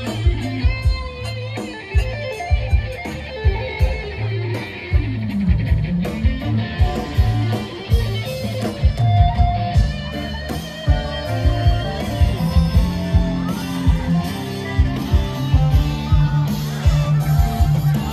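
Band music led by electric guitar, with bass and a drum kit keeping a steady beat.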